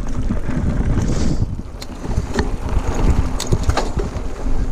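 A mountain bike rolling fast over a dirt trail with wind buffeting the action camera's microphone, a heavy rumbling rush that eases briefly about a second and a half in. Scattered sharp clicks and rattles from the bike come in the second half.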